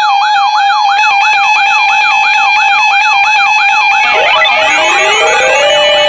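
Electronic siren alarm: a rapid up-and-down yelp, several sweeps a second over a steady tone. About four seconds in it changes to slower, overlapping rising wails.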